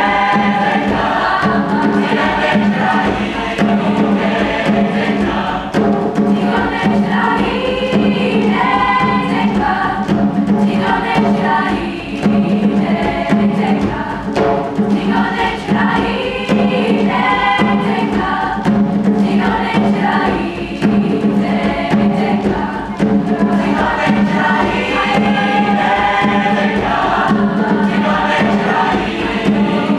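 Mixed choir of women and men singing a traditional Mozambican song in several parts, with a low note held steady beneath the moving upper voices.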